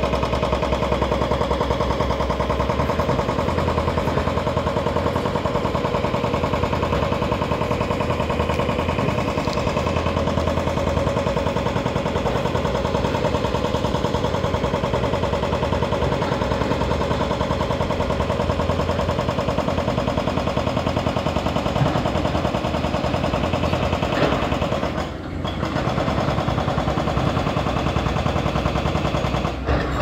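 Hydraulic breaker (hoe ram) on a Caterpillar excavator hammering ledge rock with a rapid, continuous pounding, pausing briefly near the end.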